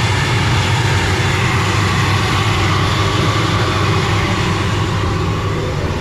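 ATR 72-500's turboprop engines running steadily: a loud, even drone with a deep hum underneath.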